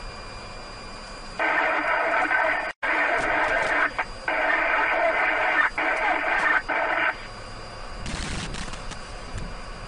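A vehicle horn sounding in long, steady blasts from about a second and a half in, broken by a few short gaps and stopping about seven seconds in. A brief noisy burst follows shortly after.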